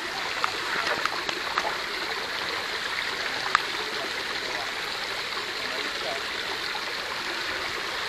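Steady rush of flowing water, with a brief sharp tick about three and a half seconds in.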